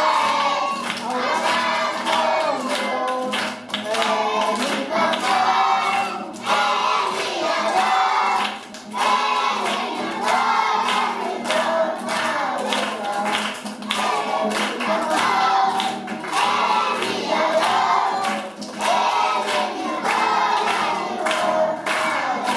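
A group of children singing a praise song together to a strummed acoustic guitar, with hands clapping in time to the beat.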